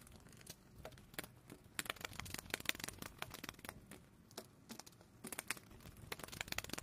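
A heap of live redclaw crayfish in a plastic bucket, their shells and legs making faint, quick, irregular clicks and scrapes against each other and the bucket as it is tipped over a steel pot.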